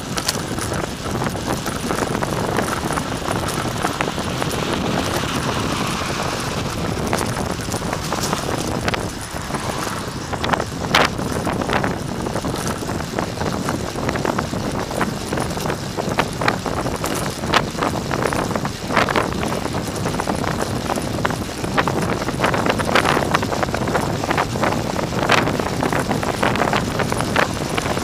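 Wind rushing over the microphone of a bicycle-mounted camera at speed downhill, mixed with road noise from a car following close behind. Irregular sharp knocks and rattles come through it all along.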